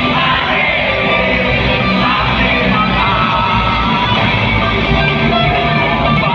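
Live rock band playing loudly through a concert PA, with guitar, heard from among the crowd.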